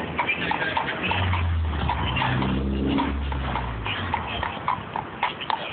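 Shod horse hooves clip-clopping on street pavement in a steady walking rhythm. A low rumble joins in from about a second in and fades out near the four-second mark.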